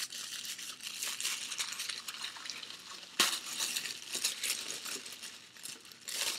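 Packaging crinkling and rustling as a handbag is unwrapped, with one sharp click about three seconds in.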